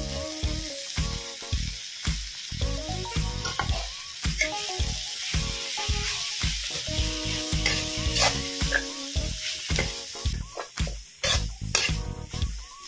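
Rice sizzling as it fries in a steel wok, stirred and scraped with a metal ladle in repeated short strokes, over faint background music.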